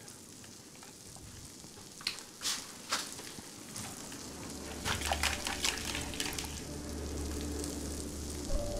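Food sizzling in a frying pan, a steady hiss with scattered clicks and knocks, busiest about five seconds in. A low hum joins about halfway through.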